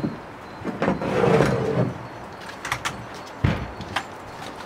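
Folded kayak trolley being pulled out through a kayak's round hatch: a scraping rustle about a second in, then a few clicks and a thump as its plastic wheels and frame knock against the hatch rim and hull.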